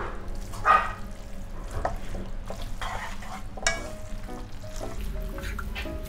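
Spaghetti carbonara being stirred and tossed in a nonstick wok with a silicone spatula and wooden chopsticks, scraping against the pan over a soft sizzle. Two louder scrapes come about a second in and near the middle.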